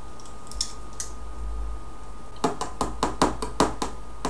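Quick, light, even tapping, about five taps a second, starting a little past halfway: small nails being driven into the thin back panel of a flat-pack drawer. Before that there are only a couple of faint clicks.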